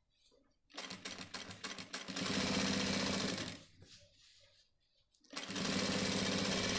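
Sewing machine stitching a shirt hem in short runs: a few slow separate stitches about a second in, then a steady run for about a second and a half, a stop, and another steady run over the last second and a half.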